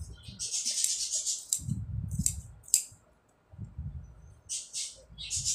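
Tailoring scissors cutting through cloth in a series of crisp snips, with the cloth rustling as it is handled. The snipping stops briefly about three seconds in and starts again near the end.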